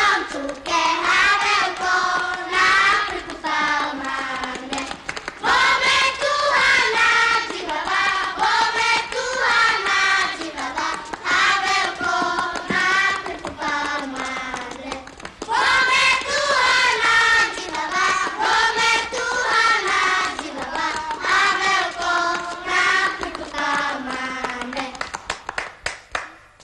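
A group of children singing a lively song together, with rhythmic hand clapping keeping the beat. The singing stops just before the end.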